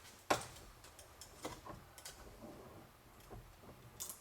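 Light clicks and taps from handling a scrap piece of car-door sheet metal and tools on a bench, with one sharper knock about a third of a second in and a bright click near the end.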